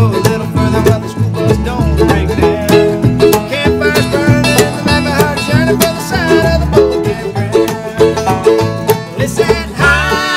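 Bluegrass band playing on acoustic instruments: banjo, guitar, mandolin and a plucked upright bass. A man's voice comes in singing near the end.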